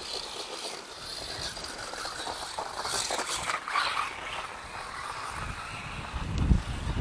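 Four-wheel-drive RC truck driving through snow: a rough, grainy hiss of tyres and drivetrain that swells about three seconds in. Wind buffets the microphone in low gusts near the end.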